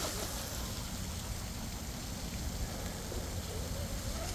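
Steady, even hiss of splashing water from the pond's fountain, with low wind rumble on the microphone.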